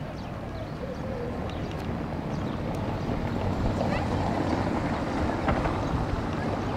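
Outdoor harbour ambience: wind buffeting the microphone over a steady low rumble, with faint distant voices, growing louder about halfway through.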